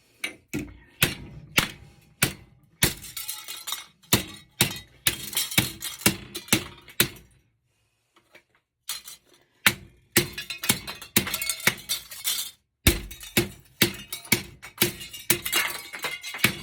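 Hammer blows on copper-and-aluminum heat sinks, knocking the cast aluminum off the copper: repeated sharp metal strikes with clinking of loosened pieces, stopping for about two seconds midway, then resuming.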